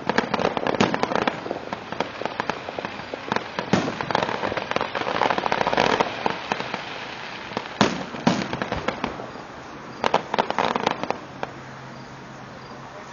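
Aerial fireworks display: dense crackling and popping of bursting shells, with several louder sharp bangs about eight and ten seconds in, before it dies away to a quieter rumble near the end.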